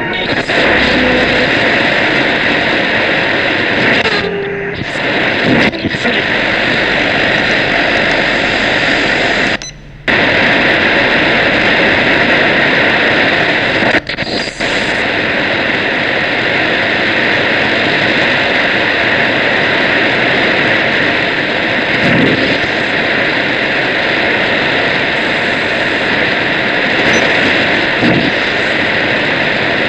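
Shortwave radio receiver putting out loud, steady static hiss with no programme audible, dipping briefly about 4, 10 and 14 seconds in.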